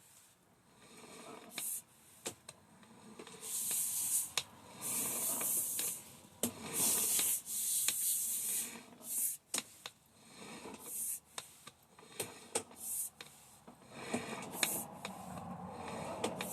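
Intermittent scraping and hissing bursts with sharp clicks, starting a couple of seconds in, as the sewer inspection camera's push cable is fed through the line.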